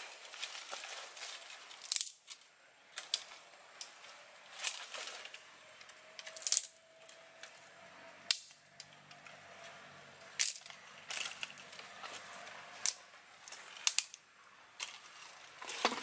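Dry sticks snapping as they are broken by hand, about ten sharp cracks at irregular intervals, with the rustle of twigs being handled between them.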